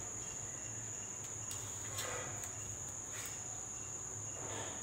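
Steady, high-pitched chirring of insects, likely crickets, over a low hum, with faint rustles of masking tape being pressed onto a wooden frame about two seconds in and near the end.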